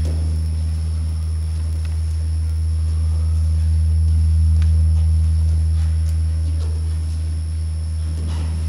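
Steady low drone with thin, high steady tones above it, swelling slightly about halfway through.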